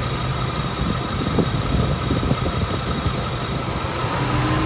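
Ford Mustang GT's 5.0-litre V8 idling steadily with the electric radiator fan running, heard from beneath the car. There is no valvetrain tick, which the owner takes as a sign of a normal, healthy engine after the oil change.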